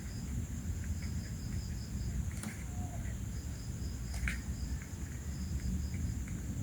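Insects chirping in short, regular trains of high-pitched pulses over a steady high whine and a low background hum, with a few faint clicks.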